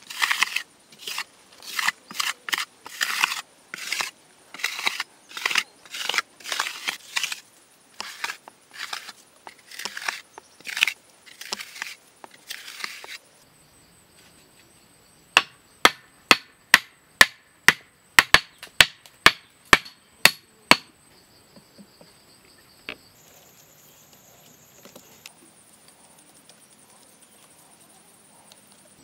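Hand tool scraping dried mud in quick strokes, about two a second, for some thirteen seconds. Then about fourteen sharp knocks, two or three a second. Crickets chirp steadily through the quiet that follows.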